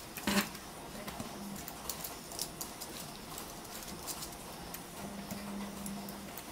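Transformer-type soldering gun humming steadily for about a second near the end while soldering wires onto LED strip boards, amid light clicks and taps of the tip and wires on the boards and a single knock about half a second in.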